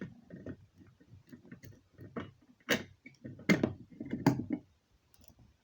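Simplex fire alarm pull station being reset by hand: a run of small clicks and taps, with a few sharper knocks in the middle.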